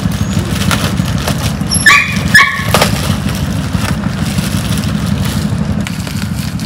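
Plastic bag crinkling as a package is unwrapped by hand, over a steady low engine rumble. About two seconds in, two short high-pitched sounds half a second apart stand out as the loudest events.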